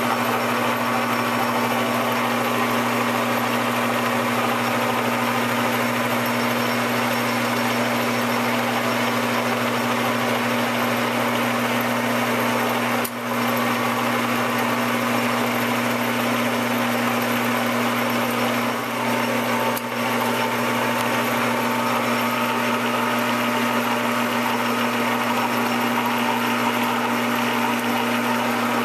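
Metal lathe running steadily under power cross feed while a tool faces off the end of a 5/16-inch drill rod, with coolant flowing onto the cut. A continuous even hum, broken by two brief dips near the middle.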